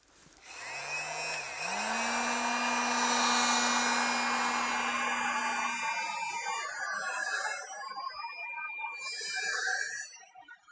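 Werker EWHG 650 electric heat gun running. Its fan motor comes up in two steps to a steady hum under a loud rush of air. The hum drops out about six seconds in and the air noise eases, then a loud rush of air near the end cuts off suddenly.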